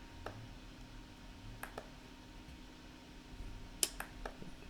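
A few faint, scattered clicks of computer keys or mouse buttons, the sharpest about four seconds in, over a low steady hum.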